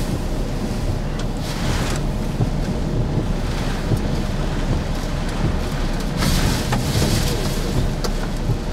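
Hurricane-force wind and driving rain battering a vehicle, heard from inside the cab as a heavy roar with low buffeting, with gusts swelling about one and a half seconds in and again about six seconds in.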